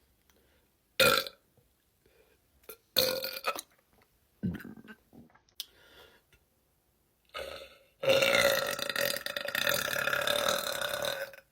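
Women burping: several short burps, then one long, steady burp of about three seconds near the end.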